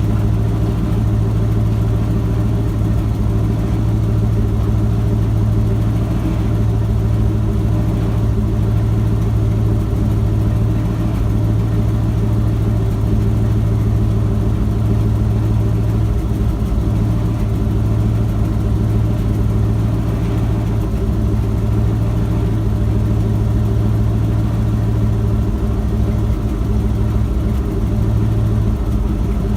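Ford F-250's 7.5-litre 460 big-block V8 idling steadily while it warms up.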